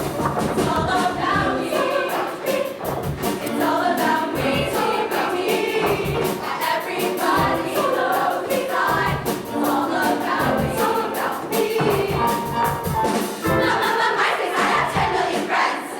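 Show choir singing in full harmony over a live band, with a driving drum beat.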